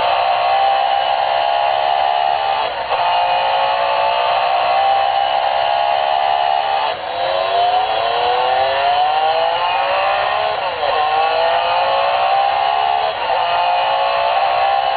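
Recorded racing-car engine sound effect from an F1-themed alarm clock, played through its small speaker so it sounds thin, without bass. The engine revs climb and drop back several times, as at gear changes, with a long climb in the middle.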